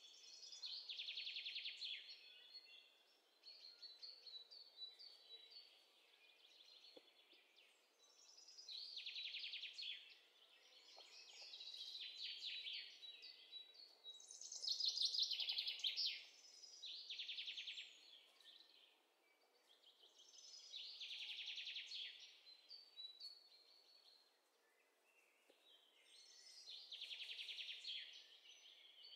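Faint bird song: a trilling phrase of rapid high notes, each lasting a second or two, repeated every few seconds.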